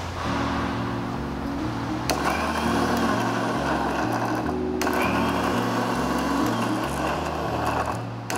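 Electric mixer grinder with a stainless steel jar running at speed, grinding garlic, green chilies and peppercorns with vinegar into a wet paste. Background music plays under it.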